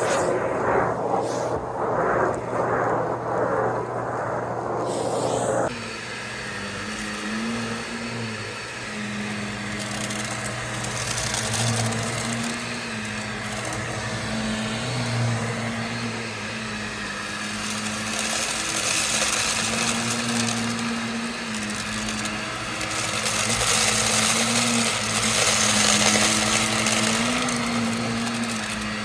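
Vacuum cleaner running with a steady motor hum and a hiss of suction. Its tone wavers slightly as it is pushed over the floor. About six seconds in, the sound changes suddenly from a duller, pulsing noise to the full, brighter run.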